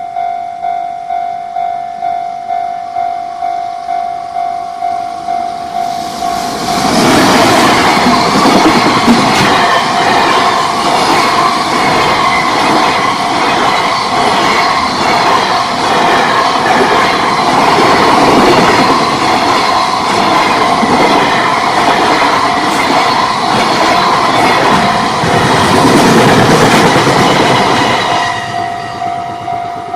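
Level-crossing warning bell ringing with a steady, evenly pulsing tone. About seven seconds in, a freight train hauled by an EF210 electric locomotive pulls a long rake of container wagons across the crossing: loud wheel-and-rail noise with a rhythmic clickety-clack for about twenty seconds. The bell is heard again near the end.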